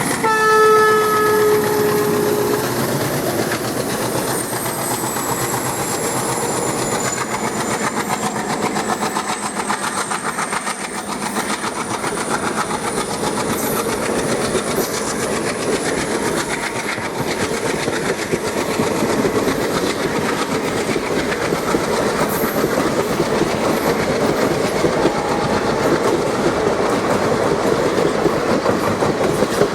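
Passenger train rolling past with a steady clatter of wheels over the rail joints. A short horn note sounds at the very start and lasts about two seconds.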